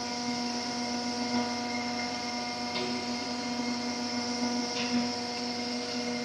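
Exhaust-pipe roll-forming machine running, its motor-driven rollers giving a steady hum as they curl a stainless steel sheet into a tube. A couple of faint ticks come about three and five seconds in.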